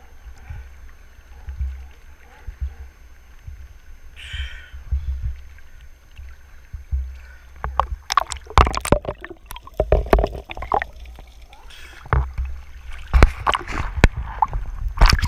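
Seawater sloshing and splashing against a camera held at the waterline, over a low rumble. The splashing turns busier and louder from about eight seconds in.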